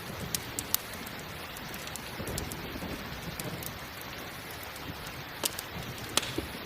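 Steady rain falling, mixed with a crackling campfire. The fire gives a few sharp pops: two within the first second and two more about five and six seconds in.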